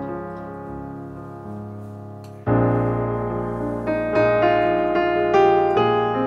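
Background piano music, a steady run of held notes that gets noticeably louder about two and a half seconds in.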